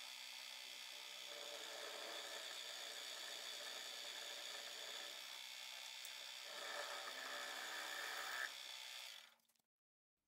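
Small milling machine running, its spot drill cutting cone-shaped holes into a metal tool-holder blank with a steady whir. The cutting grows louder for about two seconds near the end, then the sound fades out.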